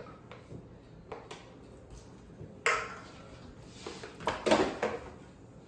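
Aluminium beer cans knocking and clinking, with scattered light clicks, a sharp hit a little before halfway, and a louder flurry of handling noise near the end.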